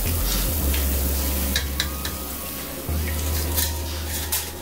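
Hot oil sizzling faintly as a perforated metal fry basket of fried fish is lifted from a deep fryer, with a few sharp metal clinks as the basket is handled and tipped over a pan.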